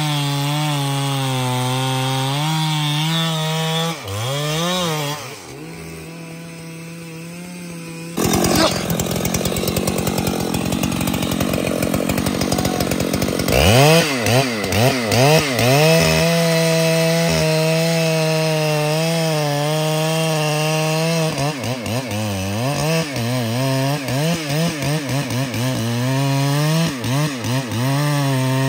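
Large Husqvarna two-stroke chainsaw running at high revs. It eases off for a few seconds, then rasps through wood from about a third of the way in for roughly five seconds. Through the second half it keeps running with the throttle blipped up and down many times.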